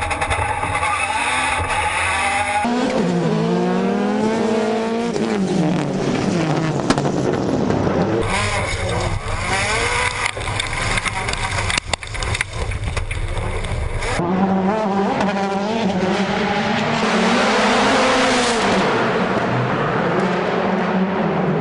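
Rallycross race cars at speed, engines revving up and down through the gears, with some tyre squeal. The sound changes abruptly a few times, as between shots.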